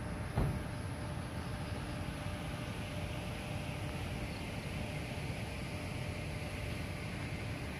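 Steady low rumble of wind buffeting the microphone while riding a bicycle, with one sharp knock about half a second in.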